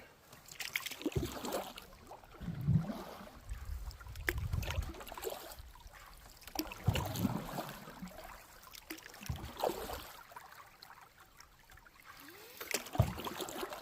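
Canoe paddles stroking through river water, a swish and splash every two to three seconds.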